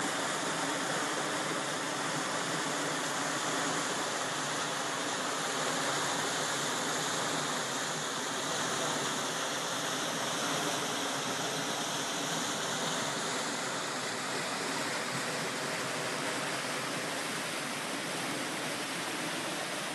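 Fast-flowing floodwater rushing and churning, a steady, even wash of noise.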